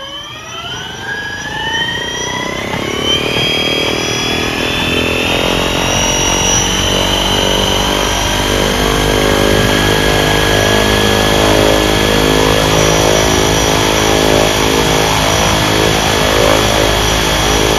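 Sherwood E-KUB all-electric aeroplane starting up: its electric motor and propeller spin up with a rising whine over the first few seconds, then settle into a steady run, several whining tones over the propeller's rushing noise.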